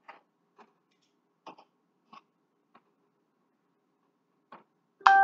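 A knife cutting through cooked pork chops, giving sparse, light, irregular taps. Near the end a sudden loud ringing note sounds and dies away over about a second.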